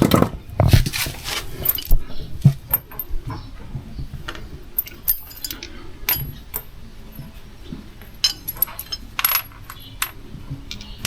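Irregular metallic clinks and knocks of hand tools and small metal parts being handled during work on a scooter's rear wheel assembly, loudest in the first two seconds and again about nine seconds in.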